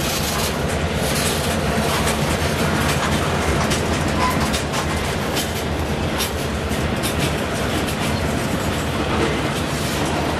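Freight train cars, covered hoppers and boxcars, rolling past: a steady rumble of wheels on rail with repeated clicks as the wheels cross rail joints.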